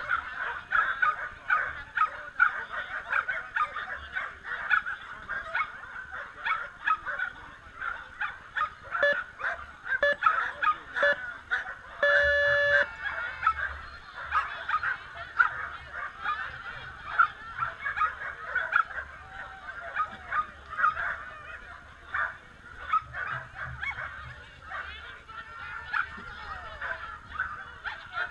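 Several excited dogs barking almost nonstop, in quick overlapping yaps and barks, typical of dogs waiting to race in flyball. About twelve seconds in, a short steady tone sounds for about half a second.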